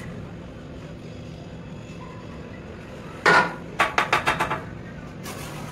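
A steel brick trowel knocking on a clay brick to bed it into fresh mortar: one hard knock about three seconds in, then a quick run of about six lighter taps. A steady low hum runs underneath.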